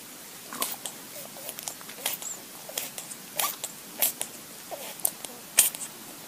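A small furry animal making a string of short, sharp mouth noises (clicks and brief squeaks) at irregular intervals.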